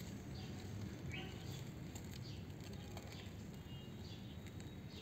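Small birds chirping in short, falling notes, repeated every half second or so, over a steady low background rumble.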